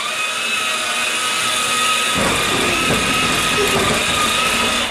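Battery-powered children's ride-on Hummer H2 driving, its electric drive motors whining steadily. The whine switches on suddenly and cuts off near the end, and a lower rumble joins about two seconds in.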